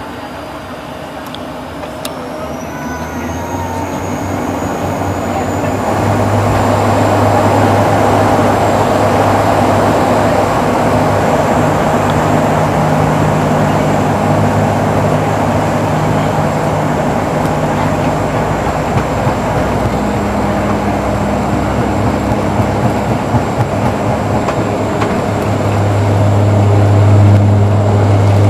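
An airliner's engines heard from inside the cabin, spooling up to take-off power: a high whine rises over the first few seconds as the engine noise builds to a loud, steady running sound with a low hum while the plane accelerates down the runway. The noise grows a little louder near the end.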